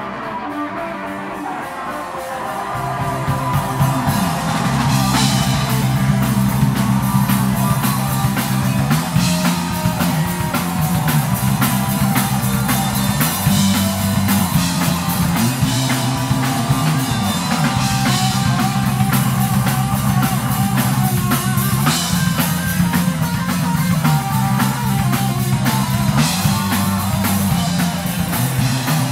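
Live blues-rock trio playing an instrumental passage on electric guitar, electric bass and drum kit. The guitar plays nearly alone at first, then a walking bass line and drums come in about three seconds in and carry on at full volume.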